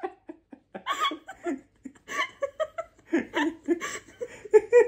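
People laughing heartily in short repeated bursts, scattered at first and fuller from about three seconds in.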